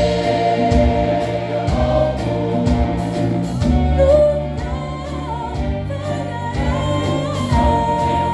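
A gospel choir singing with instrumental band accompaniment and a steady drum beat.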